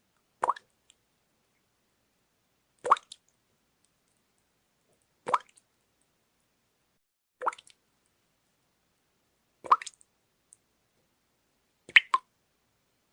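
Water dripping, one drop at a time: six single drips, evenly spaced about every two and a quarter seconds, the last one followed closely by a second small drip.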